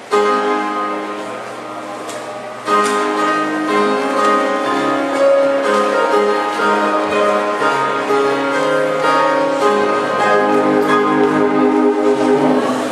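Instrumental introduction to a church hymn: sustained chords playing the tune before the congregation starts singing, louder from about three seconds in.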